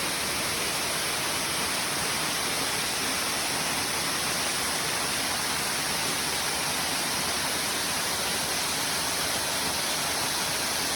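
Waterfall rushing, a steady, unchanging hiss of falling water.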